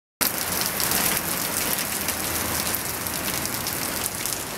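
Heavy rain pouring onto a waterlogged paved lane and its puddles: a steady hiss of rainfall with many sharp splashes of nearby drops.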